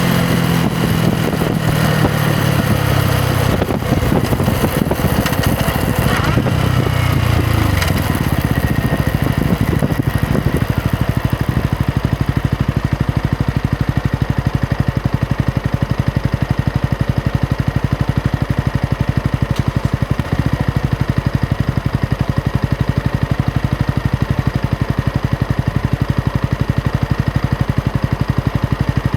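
Yamaha MT-125's single-cylinder four-stroke engine running under way with wind rush, its note dropping as the bike slows about eight seconds in, then idling steadily for the rest.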